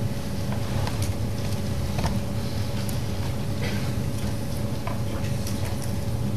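Lecture-hall room tone: a steady low hum with a faint steady tone above it, and a few scattered small clicks and knocks.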